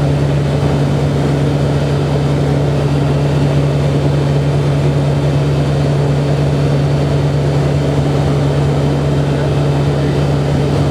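Pratt & Whitney PT6 turboprop engines and propellers of a Beech Royal Turbine Duke running steadily in cruise flight: a constant drone with a strong low hum.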